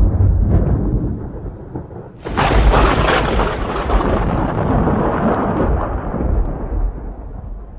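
Thunder: a low rumble fades, then a sudden sharp thunderclap a little over two seconds in rolls into a long rumble that slowly dies away.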